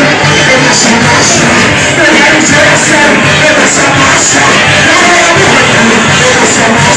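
Loud worship music with voices singing and shouting over it.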